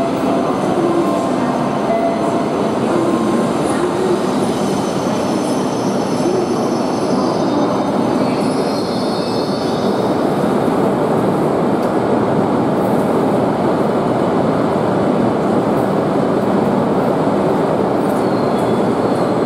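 Tohoku Shinkansen Hayabusa train rolling slowly along the platform as it comes in to stop: a steady rumble of wheels and running gear, with a faint high brake squeal about halfway through.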